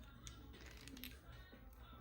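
Near silence: faint background music with a couple of light clicks, like small objects being handled.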